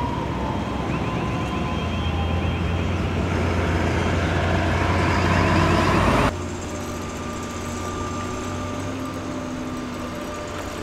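Road traffic with heavy vehicles, a deep rumbling hum that grows louder for about six seconds and then cuts off suddenly. A quieter, steady traffic hum follows.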